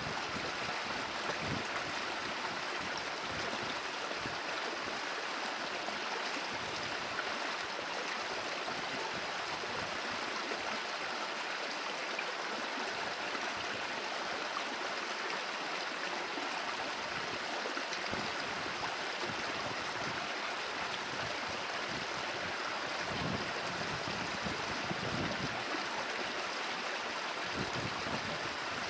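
Steady, even rushing noise with no distinct calls, with a few brief low rumbles in the second half.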